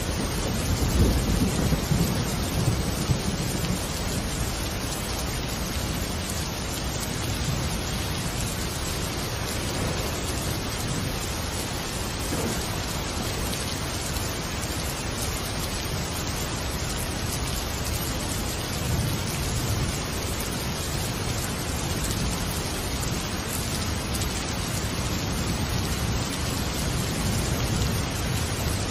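Steady rain with low rumbles of thunder, swelling in the first few seconds and again about two-thirds of the way through.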